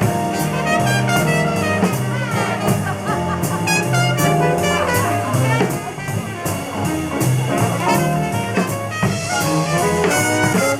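Swing jazz music with a brass section of trumpets, trombones and saxophones over a drum kit.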